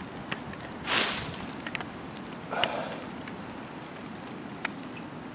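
Two brief rustles of dry leaf litter, about a second in and again between two and three seconds in, with a few small ticks and crackles over a faint outdoor background.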